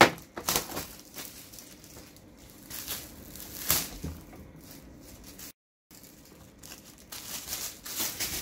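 Packaging being handled and torn open: irregular bursts of crinkling and tearing, with a sharp snap at the very start.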